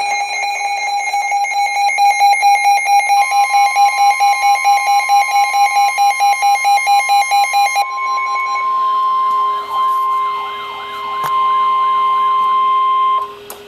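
Electronic emergency alert tones: a buzzy, pulsing beep at about three beeps a second, joined by a steady higher tone. About eight seconds in it changes to a warbling tone over steady tones, which cut off sharply near the end.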